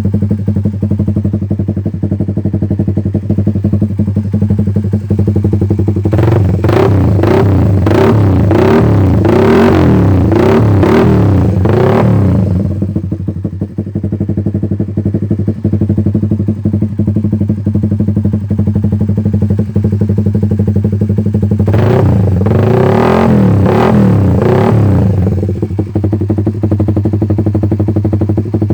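Motorcycle engine with an aftermarket CLD exhaust and a GSX fuel injector, idling steadily. Two bouts of quick repeated throttle blips come about a third of the way in and again near the three-quarter mark. It runs smoothly without coughing or sputtering.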